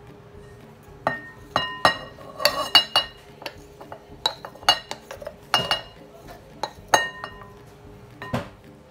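Wooden spoon knocking and scraping against a glass mixing bowl as grated potato is scraped in and stirred. There are about a dozen sharp clinks, several of which leave the bowl ringing briefly.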